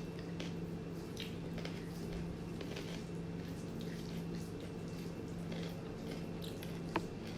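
Close-up mukbang eating sounds: soft, wet chewing of rice and kidney-bean curry, over a steady low hum, with one sharp click about seven seconds in.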